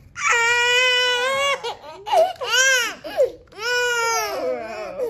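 Five-month-old baby crying in a series of wails: a long one, two short rising-and-falling cries, then another long one. He is upset, his feelings hurt, rather than injured.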